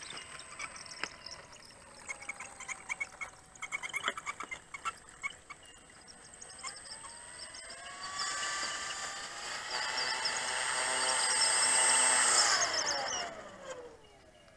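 Electric motor and propeller of a Flightline 1600mm Spitfire MkIX radio-control model whining as it taxis. The whine rises in pitch and grows louder as the model approaches, then winds down in pitch and stops near the end as the throttle is cut. Earlier there is a spell of irregular clattering clicks.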